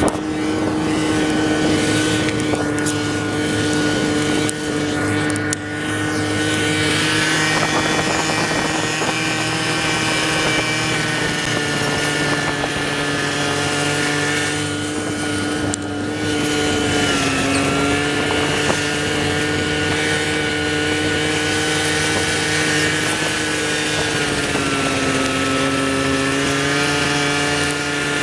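An engine running at steady revs, its pitch dipping briefly twice, about halfway through and again near the end.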